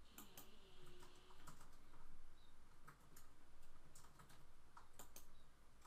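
Faint, irregular clicks of a computer mouse and keyboard.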